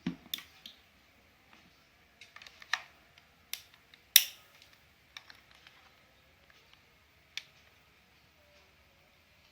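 Irregular clicks and knocks of hard plastic as RJ45 plugs and a LAN cable tester are handled, with one sharp knock about four seconds in the loudest.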